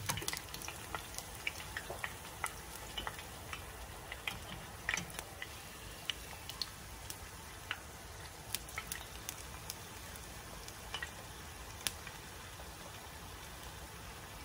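Corn tortilla frying in shallow hot oil in a small pan: a low steady sizzle with scattered sharp pops and crackles of spattering oil. The pops are busiest right at the start, as the tortilla is turned over in the oil.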